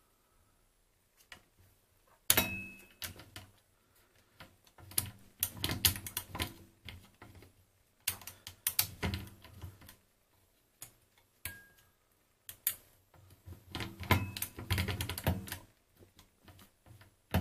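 Feliks-M mechanical calculator's carriage being stepped along with its indexer knob: from about two seconds in, groups of rapid clicks and clacks as the latch catches each position, with short pauses between groups. The indexing is still not smooth despite fresh grease.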